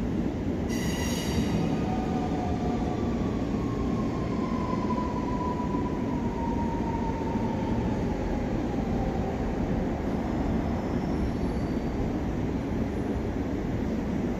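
Electric commuter train pulling into the station over a steady low rumble. Its motor whine slides slowly down in pitch as it slows, and a brief high squeal sounds about a second in.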